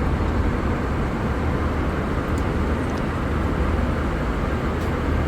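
Steady rumble of an airliner cabin in flight, the engines and airflow making a constant low drone.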